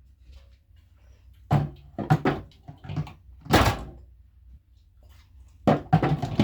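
Drinks being set one after another into a fridge drink organizer: a series of short knocks and clunks, with the loudest about halfway and a quick run of them near the end.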